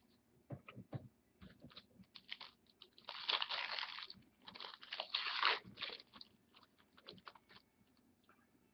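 Trading card pack wrapper being torn open and crinkled: scattered clicks of handling, then two loud bursts of crackling rustle a few seconds in.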